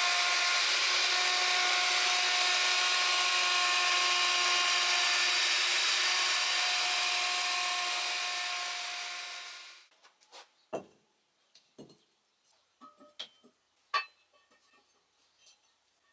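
Hand-held electric router, set up as a homemade thickness planer, running steadily with a whine and cutting wood. It winds down about ten seconds in, followed by scattered light knocks and clicks.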